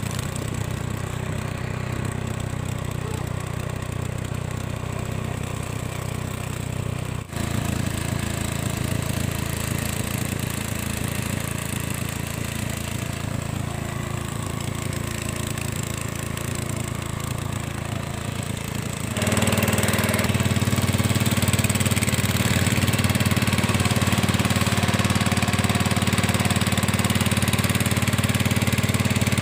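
Small boat engine running steadily at a constant speed. It dips briefly about seven seconds in and runs louder and harsher from about two-thirds of the way through.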